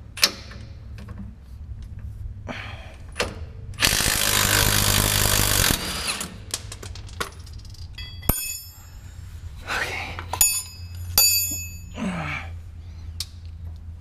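A cordless impact wrench with a socket extension runs for about two seconds on the truck's lower shock bolt, a few seconds in. Later, metal tools clink and ring against the concrete floor, amid scattered clicks and knocks.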